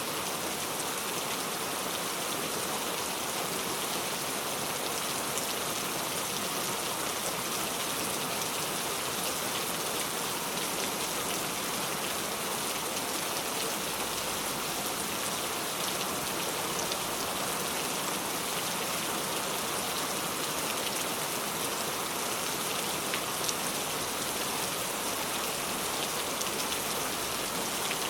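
Steady rainfall with a continuous hiss and scattered individual drops ticking on a surface.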